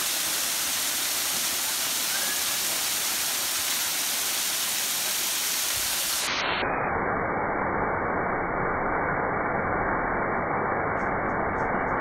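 Steady rush and splash of a small waterfall spilling in thin streams over layered rock ledges onto the rocks below. About halfway through, the sound turns duller, its high hiss cut off.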